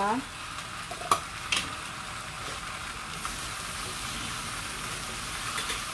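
Chicken, potatoes, onion and garlic sizzling steadily in a dry stainless steel pot, cooking in their own juices with no oil. A couple of light clicks come about a second in.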